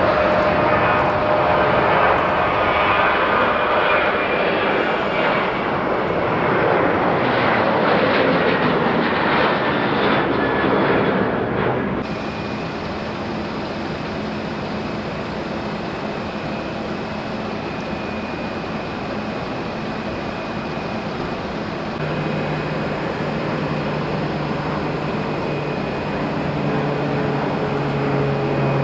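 Boeing 737 jet engines at takeoff power, a loud dense roar as the airliner lifts off. About 12 seconds in it cuts off abruptly to a quieter, steady airport hum with a thin high tone, and about ten seconds later a deeper steady drone joins.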